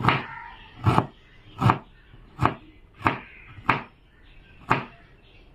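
Kitchen knife cutting ginger finely on a cutting board: about seven separate knife strokes, slow and unevenly spaced.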